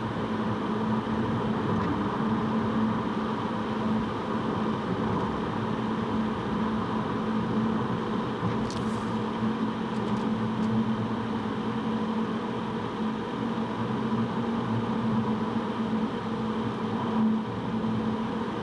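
Steady car cabin noise from the engine and tyres, with a constant low hum. A brief click about nine seconds in.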